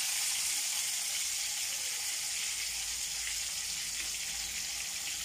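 Masala-coated fish slices frying in hot oil, a steady high sizzling hiss.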